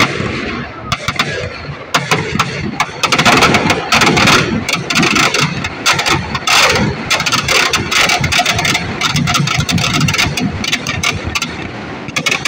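Firecrackers packed inside burning Dussehra effigies going off in a dense, rapid crackle of sharp bangs. They start about a second in and thin out near the end.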